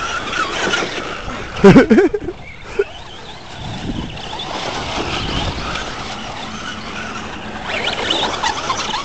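Electric RC short-course trucks driving on dirt: a steady motor whine and tyre noise. A short, loud warbling burst about two seconds in.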